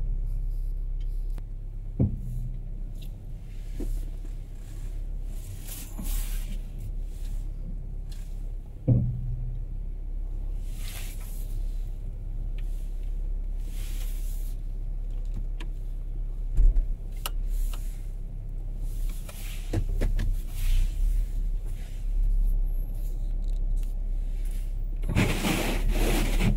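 A car's engine running, heard inside the cabin as it reverses and pulls away: a steady low hum, with soft swishes every few seconds and occasional clicks and knocks.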